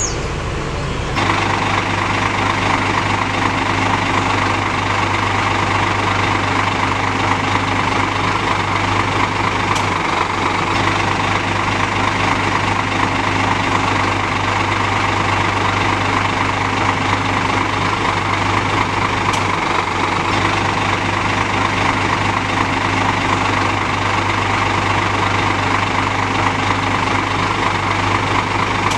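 Scania K410 coach's diesel engine idling steadily, its note unchanged throughout. It becomes louder about a second in.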